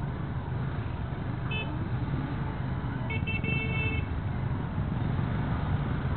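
Motorcycle engine running in slow traffic over road and wind noise. A vehicle horn toots once briefly about a second and a half in, then several quick toots about three seconds in.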